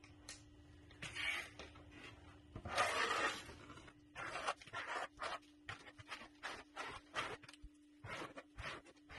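Hand trowel scraping and spreading a thin coat of feather finish concrete over a countertop, in a string of short strokes that come quicker from about four seconds in. A faint steady hum runs underneath.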